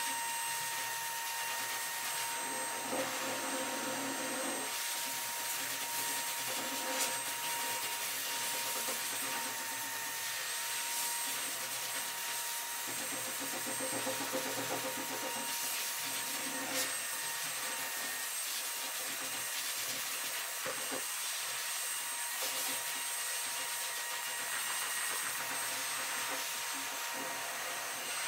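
Steady whir of an electric blower motor with a thin high whine, at an even level throughout, and a few faint clicks.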